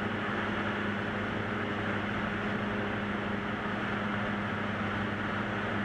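Single-engine light aircraft's piston engine and propeller running steadily in flight, heard from inside the cockpit as an even hum with a constant low tone.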